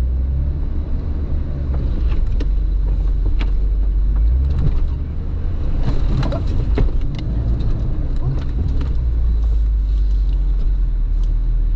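Off-road 4x4's engine running low and steady while driving a rough, snowy trail, with scattered knocks and clunks, thickest a few seconds in.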